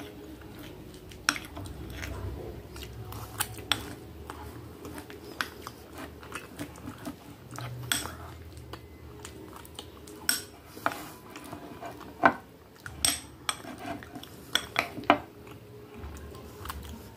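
Metal spoon clinking and scraping against a glass bowl as it digs into a hard frozen dessert, in irregular sharp clicks, the loudest about twelve seconds in.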